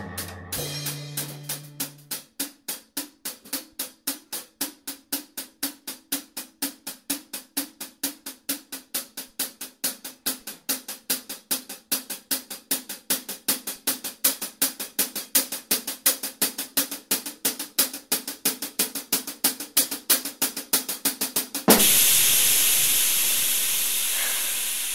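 Soundtrack music: a steady drum-kit beat with hi-hat ticks at about two and a half a second over a held low note. About 22 seconds in it gives way abruptly to a loud rushing hiss of shower spray that slowly fades.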